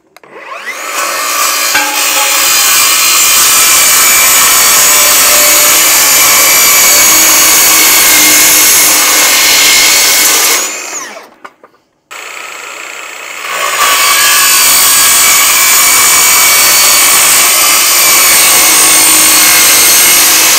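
Handheld circular saw cutting through a powder-coated galvanized steel 2x6 joist, loud and steady for about ten seconds, then spinning down. The saw starts again, runs more quietly for a moment, and cuts through a second time.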